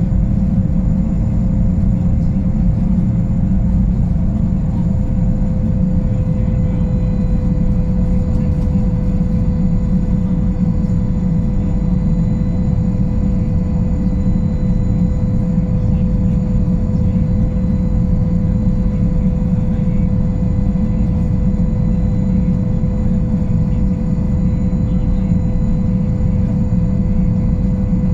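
Boeing Jetfoil 929-115's gas turbines and waterjet propulsion running steadily at reduced speed after a suspected strike on an unknown object: a deep, unbroken rumble with a steady whine that drifts slightly lower.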